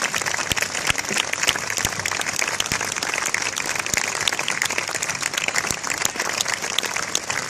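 Crowd applauding, many hands clapping at once in an irregular patter.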